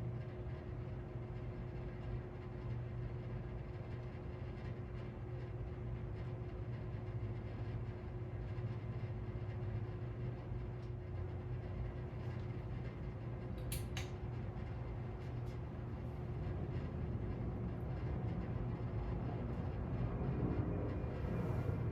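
SMC Rivera ceiling fan running steadily on low speed: a constant motor hum with the rush of the turning blades, and two faint clicks about two-thirds of the way through.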